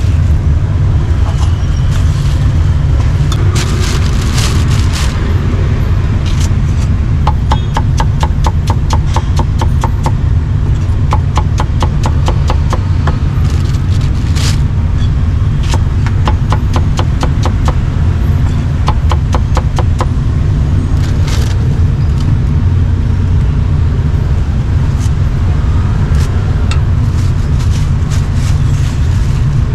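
Cleaver chopping roast pork on a thick wooden chopping block: sharp strikes, with a fast even run of about four a second through the middle. A steady low rumble lies under it throughout and is the loudest sound.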